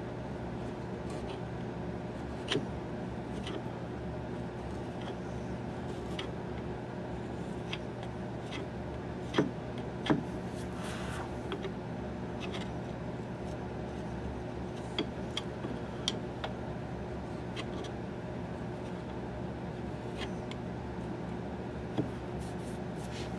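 Fine wood chisel paring and rounding over a wooden rifle buttstock by hand: scattered small cutting clicks and scrapes as shavings come off. The two loudest are about nine and ten seconds in. A steady low hum runs underneath.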